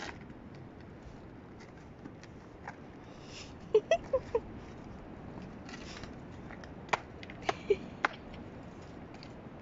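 A handful of short, sharp clicks and knocks in two clusters, about four seconds in and again near the eight-second mark, over a quiet steady outdoor background.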